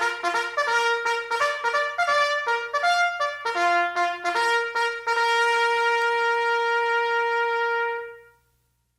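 A bugle (corneta) playing a quick call of short tongued notes on a few pitches, ending on one long held note that fades out about eight seconds in.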